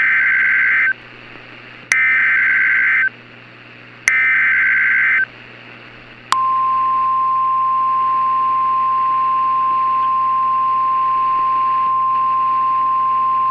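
Emergency Alert System SAME header: three bursts of buzzing digital data tones, each about a second long and about a second apart. About six seconds in comes the steady single-pitch NOAA Weather Radio 1050 Hz warning alarm tone, which runs on to the end and signals a severe thunderstorm warning.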